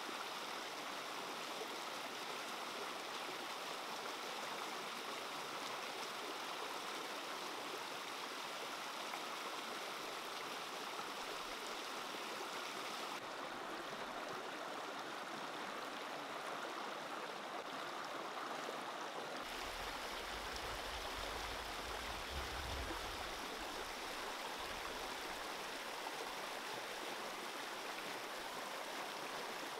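Shallow rocky stream rushing over small rapids, a steady water noise that turns briefly duller about halfway through.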